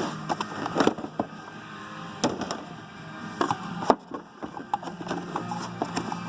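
Hand tools knocking and clinking as they are handled and moved about in a tool chest drawer, with a few sharp knocks scattered through.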